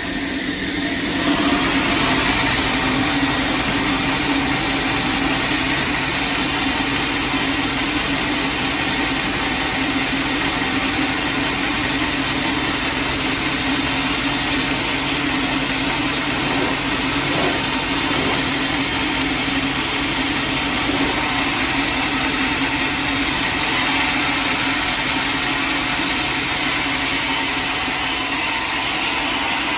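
Sawmill saw cutting steadily through a log, with the mill's engine running underneath. The noise gets louder about a second in and then holds steady.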